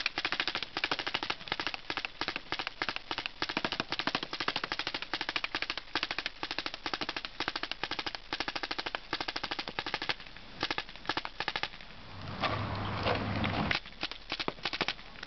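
Tippmann A5 paintball marker fitted with an electronic E-Grip trigger, firing long rapid strings of evenly spaced shots. The firing thins to a few scattered shots later on, with a short rush of noise between them.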